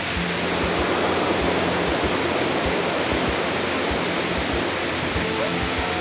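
Tall waterfall rushing steadily into a rock pool, with soft background music underneath; a held musical note slides up and comes in near the end.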